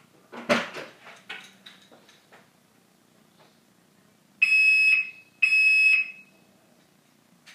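A few knocks and clicks, then two loud, steady electronic beeps of about half a second each, a second apart.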